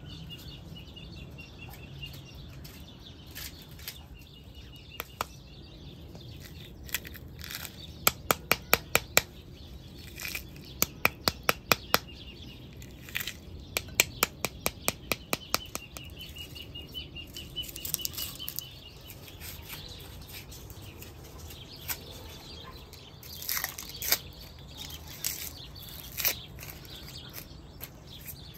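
Hands working a pomegranate over a ceramic bowl: a quick, even run of sharp clicks and taps as the arils are knocked and broken out into the bowl. Near the end come scattered crackles of dry onion skin being peeled. A wavering high chirp runs faintly underneath at times.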